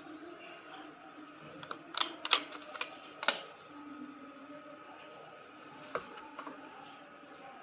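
Sharp clicks and knocks of an alarm clock and its packaging being handled: four close together between about two and three and a half seconds in, and one more near six seconds, over a faint steady hum.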